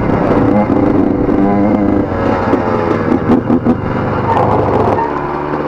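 Dirt bike engine running under changing throttle while riding, with a few sharp knocks; it settles to a steadier note near the end.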